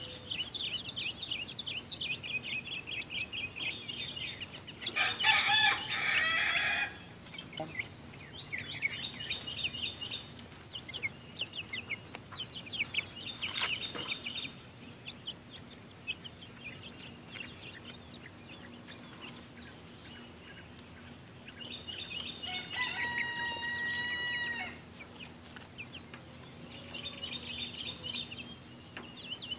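A flock of young Silkie chickens peeping and chirping in rapid high notes throughout. A loud, harsher call comes about five seconds in, and a long, steady pitched call about 23 seconds in.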